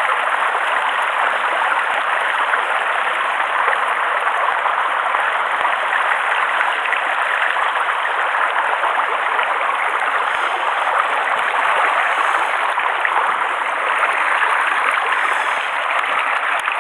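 Mountain stream flowing over a stony bed, a steady, even hiss of water.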